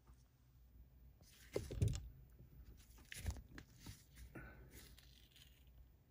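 Faint handling noises: soft knocks, clicks and rustling, loudest about one and a half to two seconds in, with a sharp click a little past three seconds.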